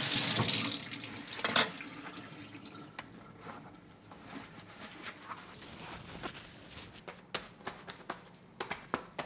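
Kitchen tap running over raw chicken breasts in a stainless steel sink, the water stopping about a second in, with one brief loud sound just after. Then soft rustling and light taps as the chicken is handled and patted dry with paper towel.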